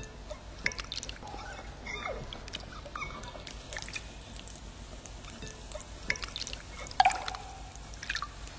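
Hands splashing and rinsing in a glass bowl of water, with drips and trickles and small scattered clicks. About seven seconds in comes a sharp knock that rings briefly.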